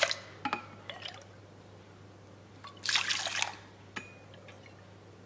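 Whole milk being poured with a measuring cup into a stainless steel mixing bowl: a short splashing pour about three seconds in, with a few light clinks of the cup before and after.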